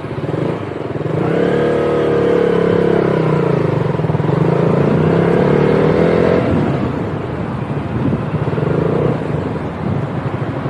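Motorcycle engine heard from on the bike, pulling away with its note rising under throttle and holding. It drops off about six seconds in as the throttle closes, and a shorter rise in the engine note follows.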